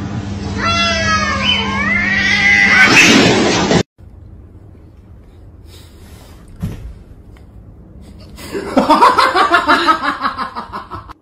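Two cats caterwauling at each other in long, gliding yowls that build to a loud screech and cut off suddenly. A quieter stretch follows, with a single thump, then a run of rapid, fading pulses near the end.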